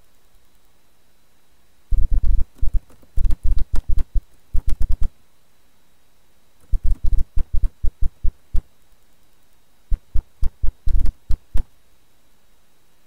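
Animated-intro sound effect of rapid, sharp clicks and knocks in three bursts, each click carrying a low thump: the first starting about two seconds in, the second around seven seconds, the third around ten seconds.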